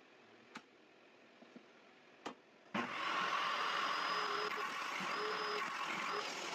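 A power saw's motor switched on suddenly about two-thirds of the way through and running steadily at speed, after two sharp clicks.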